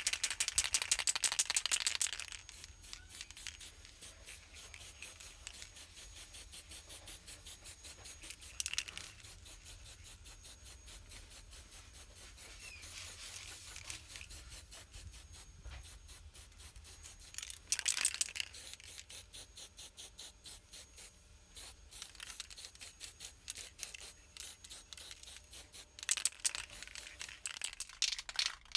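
Quick, even hand-worked rubbing strokes on a part being cleaned up for restoration, several a second, with a few louder, harsher passes: near the start, about a third of the way in, past halfway and near the end.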